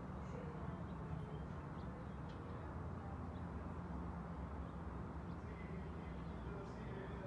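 Steady outdoor city ambience heard from high up: a low, even rumble of distant traffic with a few faint, short bird chirps scattered through.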